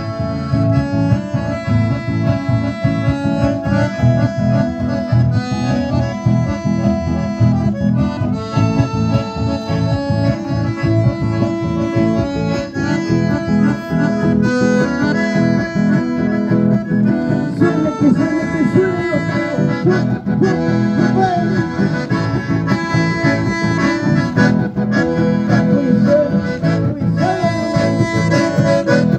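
Live accordion and guitar playing a steady, rhythmic dance tune, amplified through PA speakers.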